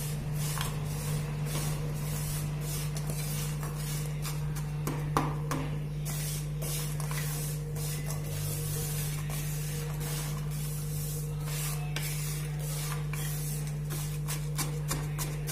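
Wooden spatula scraping and stirring dry, unmelted lumps of jaggery around a nonstick pan, a run of short scrapes and clicks over a steady low hum, with one louder knock about five seconds in.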